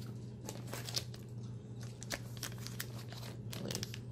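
Thin clear plastic sleeve crinkling and crackling in irregular bursts as hands pull it open, over a steady low hum.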